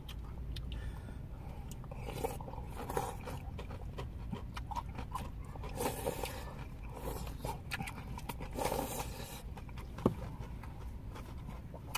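Mouth sounds of eating sundae gukbap (Korean blood-sausage soup) in a car: chewing and slurping broth, with a couple of louder slurps, and small clicks and scrapes of chopsticks and a spoon against plastic takeaway bowls.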